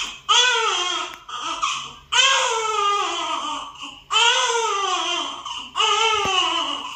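Newborn baby crying: about four loud wails in a row, each rising then falling in pitch, with a short catch of breath between them.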